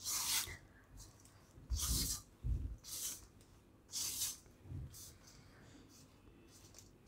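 Silicone spatula stirring dry lentil-and-spice powder in a steel bowl: a series of short scraping, swishing strokes about a second apart, with a couple of dull knocks against the bowl near the middle, dying away near the end.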